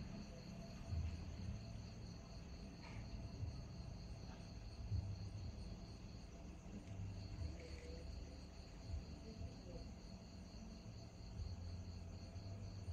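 Insects chirping in a steady, finely pulsing high trill that pauses briefly about halfway through, over a faint low rumble.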